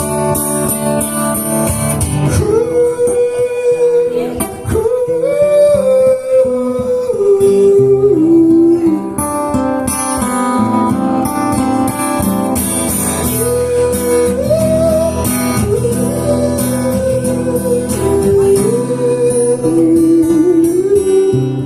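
Acoustic guitar playing live under a slow, wordless melody of long held notes that bend gently in pitch, in two phrases.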